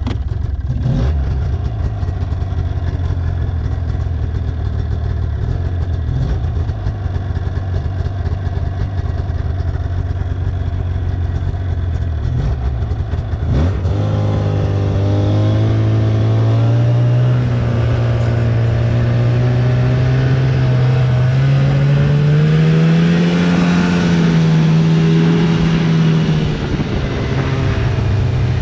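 Snowmobile engine running under way. About halfway through the engine note steps up and climbs slowly as it speeds up, then falls away near the end as it slows.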